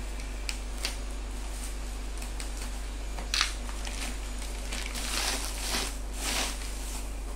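Bubble wrap rustling and crinkling as it is cut and pulled off a shock absorber, with a few sharp clicks, the loudest about three and a half seconds in, and two longer rustles near the end.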